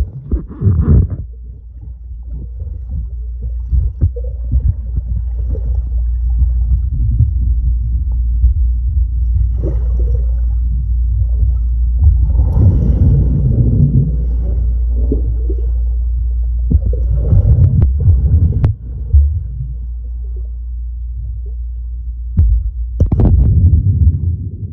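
Muffled sound of water heard through a camera held under water: a steady deep rumble with irregular bouts of bubbling and churning water, and a sharper splash near the end.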